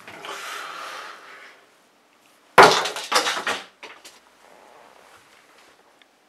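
A sudden loud crash about two and a half seconds in, followed by about a second of clattering that dies away, as of something being smashed or knocked over. A soft rushing noise comes before it.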